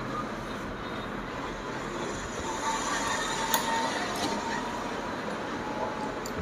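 Steady background noise, with a rag rubbing and a few faint metal clicks as the steel shuttle race ring of an old sewing machine is wiped and handled.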